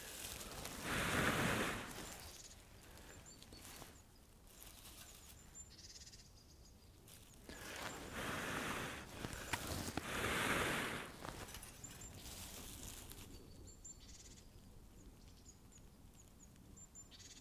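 Three long breaths, about a second each, blown into a bundle of dry grass tinder as a fire is coaxed to light, with faint bird chirps between.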